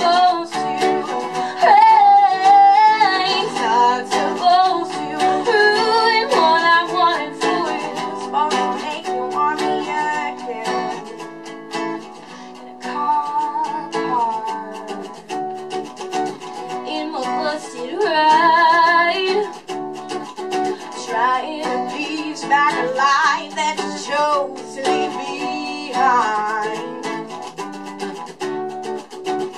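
Live unplugged song: a woman singing over a played acoustic guitar.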